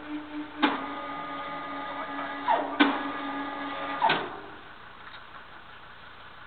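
Crane hoist starting with a clunk and running as a steady mechanical whine for about three and a half seconds, with more clunks and short falling squeals, then stopping. Under it a pulsing engine hum runs at idle.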